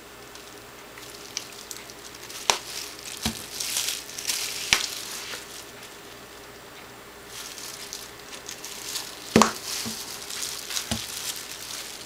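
Plastic crinkling and squeezing as a gloved hand squeezes a dye squeeze bottle into a ball of cotton yarn on plastic sheeting, in two stretches with several sharp clicks and taps.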